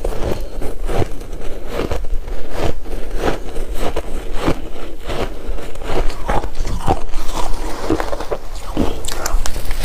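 Ice being bitten and chewed close to the microphone: repeated crunches, about two a second.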